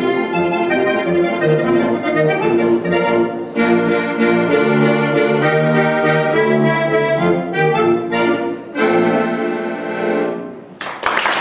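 Diatonic button accordion playing a lively Alpine folk tune in full chords, with short breaks in the phrasing. The tune ends about ten and a half seconds in, and applause starts just before the end.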